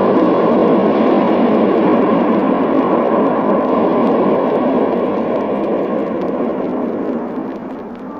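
Steady rushing noise of sea surf on an old film soundtrack, slowly fading over the last few seconds.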